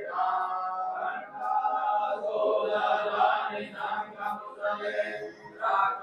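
Voices chanting a devotional hymn, holding sung notes that change pitch every second or so.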